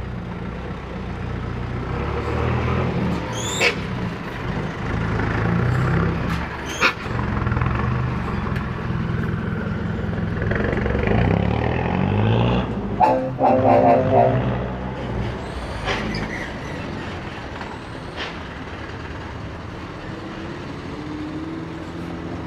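Diesel tour-bus engines pulling away and passing close by, their pitch rising and falling as they accelerate. Two sharp air-brake hisses come about three seconds apart, and a brief loud pitched blast comes about 13 seconds in.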